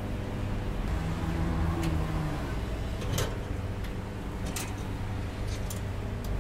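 A steady low mechanical hum with a few short, sharp clicks scattered through it.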